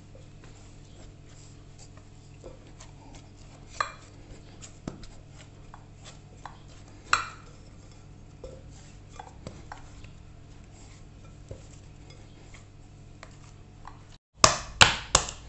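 Hand kneading a crumbly flour-and-water dough in a glass mixing bowl: quiet squeezing with scattered light taps against the glass. Near the end, after a brief break, a quick series of sharp knocks on the glass bowl, about four a second.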